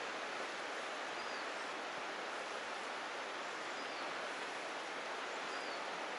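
Fast-flowing river water rushing steadily over rocks, with faint high chirps repeating about every second and a half.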